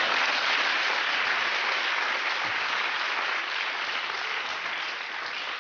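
Studio audience applauding, a dense steady clapping that slowly eases off toward the end.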